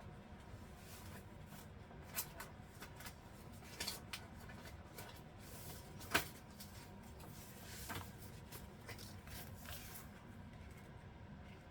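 Paper and craft supplies handled on a tabletop: soft rustling with scattered light taps and clicks, the sharpest tap about six seconds in.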